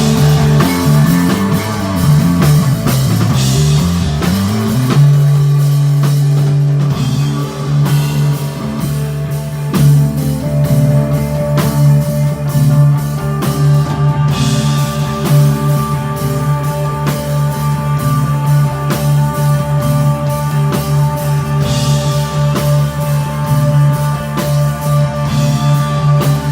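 Rock band playing live: electric guitar, bass and drum kit in instrumental desert rock. For about five seconds the bass moves up and down, then it settles on one held low note under ringing guitar tones, with the drums keeping time.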